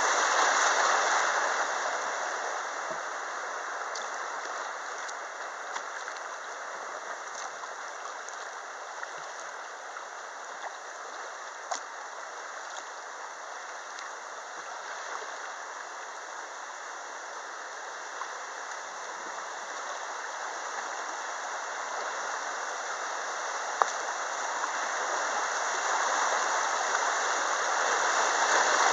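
River water rushing through small rapids around a kayak. It is loudest at the start and rises again near the end as the boat enters whitewater, and is quieter in between on a smoother stretch. A few sharp ticks stand out.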